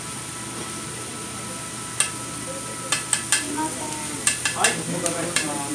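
Steak sizzling steadily on a steel teppan griddle. From about two seconds in come a string of sharp metal clinks, around nine in all, from a spoon knocking against a small stainless container as food is spooned out onto the griddle.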